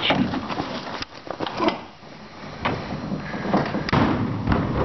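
Irregular knocks, clicks and rattles, the sound of handling at an enclosed plywood-lined cargo trailer as it is entered.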